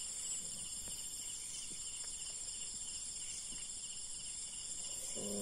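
Steady, fairly faint chorus of night insects, a continuous high-pitched shrill.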